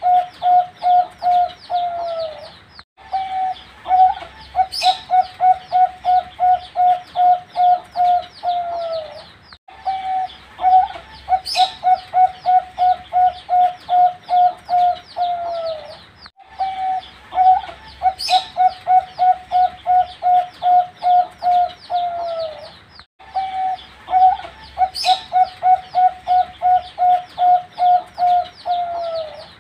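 Young zebra dove (perkutut) singing: a rapid run of even coo notes, about three a second, ending in a falling note. The phrase repeats every six to seven seconds after a short break, with one brief high chirp in each phrase.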